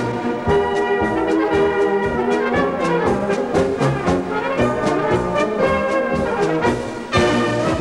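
Brass band music with a steady beat, with trombones and trumpets to the fore; a new, louder phrase begins near the end.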